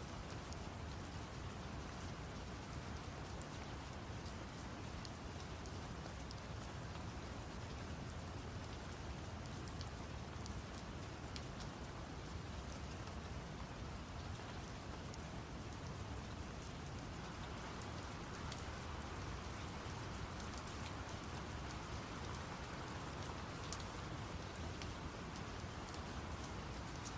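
Steady rain with scattered drops ticking on a surface, layered over a low, even brown-noise rumble.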